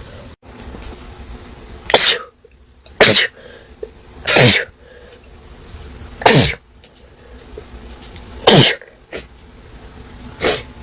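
A person sneezing over and over in a sneezing fit: six loud sneezes one to two seconds apart, each dropping in pitch as it ends.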